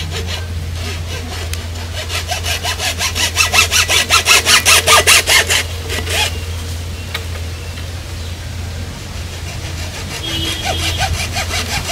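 Hand saw cutting through wood with quick back-and-forth strokes, about three or four a second. The strokes grow loudest a few seconds in, ease off, and pick up again softer near the end, over a steady low hum.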